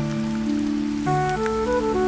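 Gentle instrumental music, a slow melody over held low notes, mixed with steady rain falling on a surface, its faint patter of drops running under the music.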